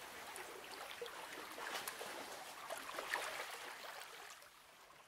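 Calm sea water lapping and splashing in small trickling patters, fading out near the end.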